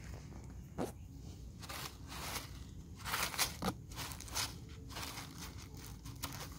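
A mesh net bag being handled on dry leaves: irregular rustling and crunching with several sharp clicks, a cluster of them about three seconds in.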